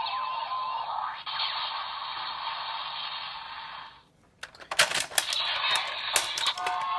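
Electronic sound effect from the Daikaiten Cannon toy's small speaker, thin and tinny, with a held tone at the start giving way to a noisy rush that cuts off about four seconds in. Sharp plastic clicks of the toy being handled follow, and a new electronic tone begins near the end.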